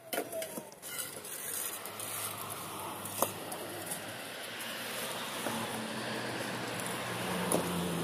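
A steady engine hum and rushing noise that grows a little louder, with a few sharp knocks as hollow concrete blocks are set down on one another.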